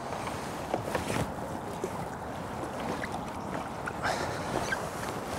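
Water splashing as a hooked carp is played at the surface and drawn into a landing net: a few short splashes, then denser sloshing in the last second or so.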